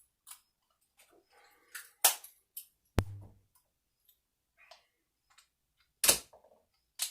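A dull blade cutting through rubber Goldhog sluice matting: a run of short scrapes and sharp clicks, with louder knocks about two, three and six seconds in, the one near three seconds with a low thump.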